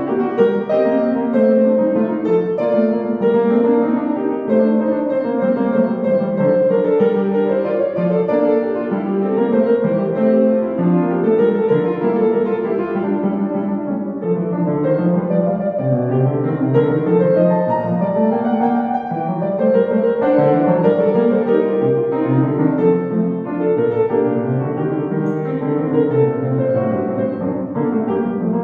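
Upright piano played solo: a continuous, busy passage of many notes moving through the middle and low registers, with no breaks.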